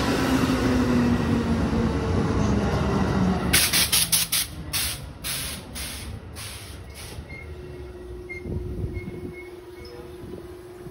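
Amtrak Superliner train rolling slowly along the platform and coming to a stop, its wheels rumbling with a low tone that falls as it slows. Then a run of short hissing bursts for about three seconds, and a quieter steady hum as it stands.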